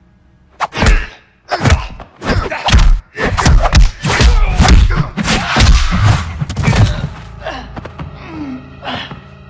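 Movie fight sound effects: after a brief quiet moment, a fast run of punch and kick impacts, loud thuds and smacks landing one after another for about six seconds, then easing off.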